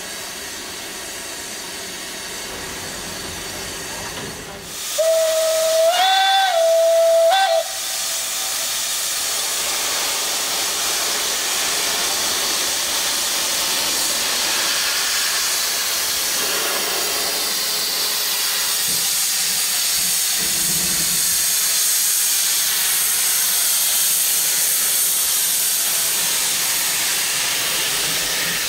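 Steam locomotive of the Furka cogwheel steam railway: a steady hiss of steam, then about five seconds in one whistle blast of about two and a half seconds whose pitch rises slightly, the loudest sound. After the whistle, steam hisses loudly and steadily from the cylinder drain cocks as the locomotive moves off.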